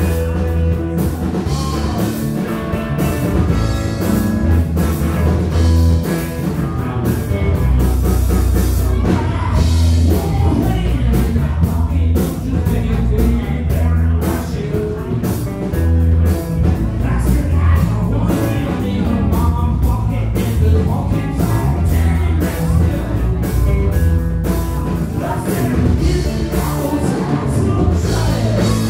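Small rock band playing live and loud: drum kit, electric bass and electric guitar together, with a steady driving beat.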